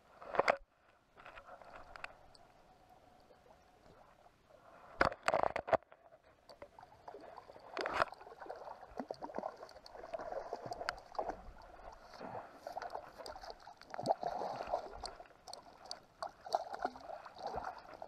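A hooked whitefish splashing and thrashing at the surface beside a boat as it is played in and netted, with water slapping and sloshing. A few sharp knocks stand out, near the start, about five seconds in and at eight seconds.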